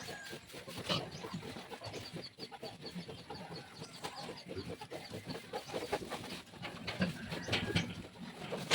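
Farmyard animal sounds: a rapid series of short high chirps or clucks, with scattered rustling and knocking.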